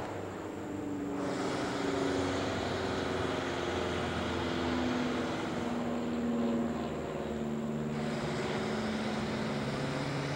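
An aircraft engine drones steadily, its pitch drifting slowly up and down, with a wider rushing hiss coming in about a second in.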